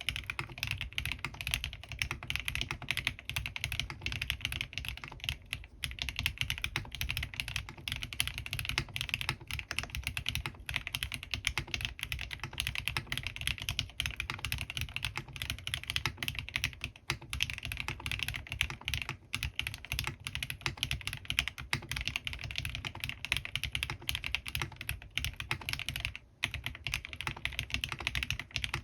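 Continuous fast typing on a custom mechanical keyboard with lubed Gateron CJ linear switches and PBT keycaps: dense, steady keystroke clacks, with one brief pause near the end.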